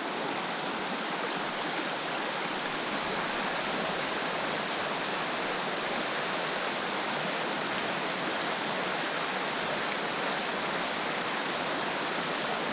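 Fast, rocky trout stream rushing steadily over rocks, an even wash of water noise with no breaks.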